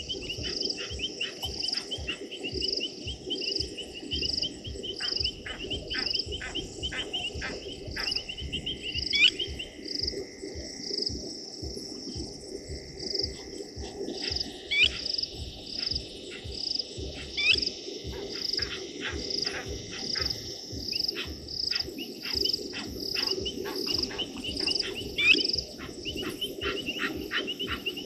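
Chorus of insects and frogs: a steady pulsing chirp about twice a second over a continuous trill, with many short clicking calls. A loud, short, upward-sliding call stands out four times.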